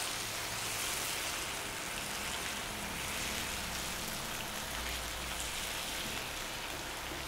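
Mutton pieces sizzling steadily in oil and ghee in a frying pan as they are stirred. The water has fully cooked off, so only the oil is frying.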